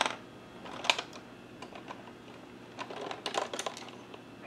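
Scattered light clicks and clacks of small hard cosmetic items being handled and sorted while looking for a lip liner: one right at the start, another about a second in, and a quick run of clicks around three seconds in.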